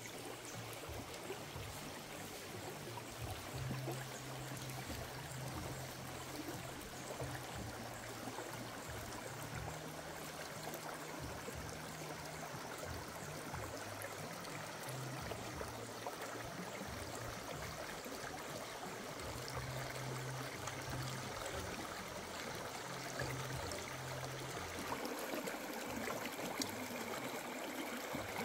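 Shallow stream running and trickling over rocks, a steady wash of water sound. A low hum comes and goes underneath.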